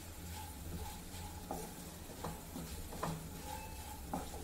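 A spatula stirring diced potatoes in a kadai of hot oil, with a faint sizzle and a few short scrapes against the pan about once a second as the potatoes are sautéed to crisp them.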